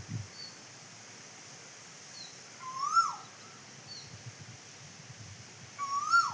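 A cuckoo, the Asian koel, gives two clear calls about three seconds apart, each rising in pitch and then falling away. Faint short chips from a small bird repeat in the background.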